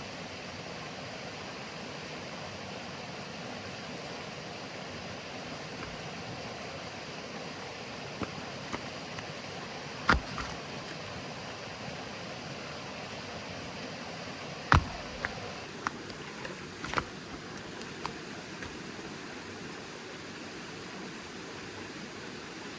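Steady rushing of a flowing stream, with a few sharp knocks between, the two loudest about ten and fifteen seconds in.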